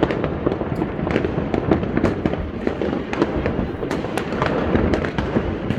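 Many fireworks and firecrackers going off at once all around: a continuous rumble of overlapping bangs with a steady scatter of sharp cracks throughout.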